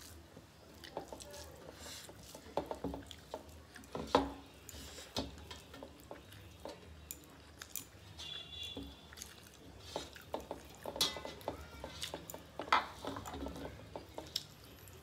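Hand-eating at the table: fingers mixing and scooping rice against metal plates, making irregular small clicks, taps and scrapes. The sharpest knocks come about four seconds in and again near the end.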